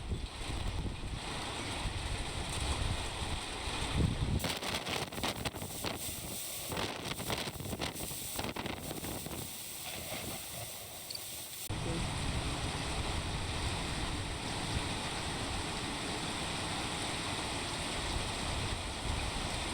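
Strong thunderstorm outflow wind gusting and buffeting the microphone as a heavy, steady rumble. For several seconds in the middle the rumble drops away, leaving a brighter hiss with crackles, before the buffeting returns.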